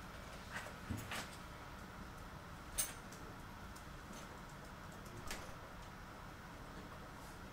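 Quiet room tone with a few scattered short clicks or taps, the sharpest nearly three seconds in.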